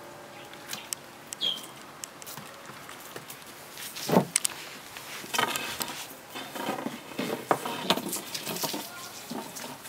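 Stiff floor brush scraping and knocking across wooden decking while a puppy tugs at its bristles, with the puppy's paws pattering on the boards. Irregular scrapes and clicks, with a heavier knock about four seconds in.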